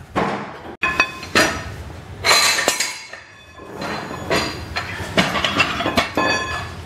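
Steel mechanical toe jack clanking as it is worked and pulled out from under the lowered mill: a series of irregular metallic knocks and clinks, several of them ringing briefly.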